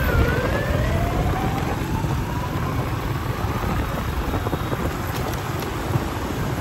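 Motor traffic with wind rumbling on the microphone. A vehicle's whine dips in pitch right at the start, then climbs slowly over the next few seconds.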